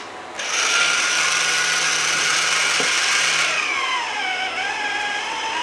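Hands-free electric can opener running on top of a can as it cuts around the lid: a steady motor whine that starts about half a second in, then drops in pitch and wavers from about three and a half seconds on.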